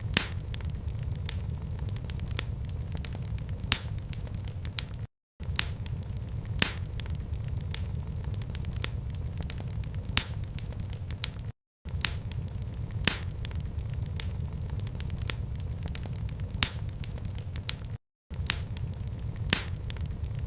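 Wood fire crackling, with scattered sharp pops and snaps over a steady low rumble. The sound cuts out completely for a split second three times, evenly spaced about six and a half seconds apart.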